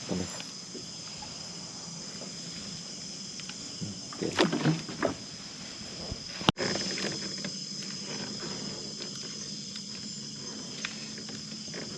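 A small boat on the water, with a cluster of knocks about four seconds in and one sharp click a little later. Under it run a steady high insect chirr and a low steady hum.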